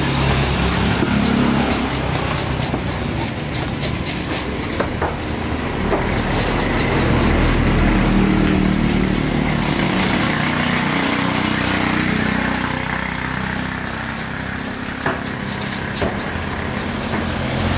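An engine running, swelling and fading in pitch and loudness, with a few single sharp knocks of a cleaver on a wooden chopping block.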